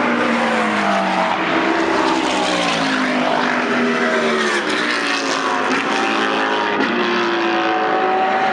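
GT3 race car engines at racing speed, several cars at once, their notes rising and falling through the gears as they pass.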